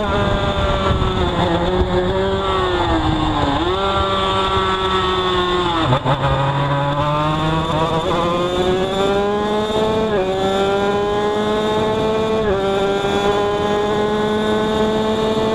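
Two-stroke road-racing motorcycle engine heard on board, with wind rushing past. The revs fall as the bike slows into a corner, with a quick jump and a sharp dip as it shifts down, then climb steadily as it accelerates out, dropping sharply at each upshift.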